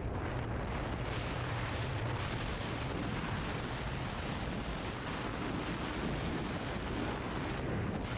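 Strong wind rushing over an action camera's microphone on a tandem paraglider banked into a 360 spiral turn: a steady, heavy buffeting noise with a deep rumble, unbroken throughout.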